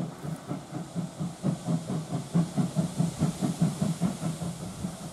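Steam locomotive running past with an even exhaust beat of about five chuffs a second over a steady hiss of steam. It is loudest in the middle and fades near the end.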